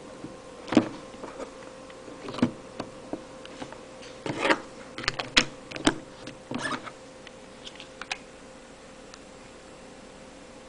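Irregular plastic clicks and taps as a mobile phone's battery and back cover are handled, fitted and pressed into place, with a quick cluster of sharp clicks around the middle; a faint steady hum sits underneath.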